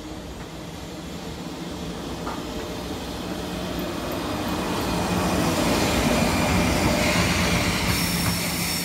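JR Freight EF66 electric locomotive and its train passing at speed. The running noise grows steadily louder as it approaches, with a steady low hum, and is loudest between about five and eight seconds in.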